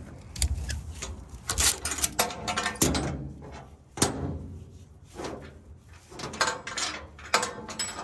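Ratchet tie-down strap being released and unhooked from a steel trailer: a run of irregular sharp metallic clicks and clanks from the ratchet buckle and strap hook.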